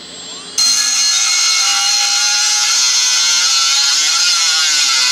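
Cut-off wheel spinning up, then cutting into aluminum angle stock about half a second in: a loud, high grinding screech that dips briefly in pitch near the end as the wheel is loaded down.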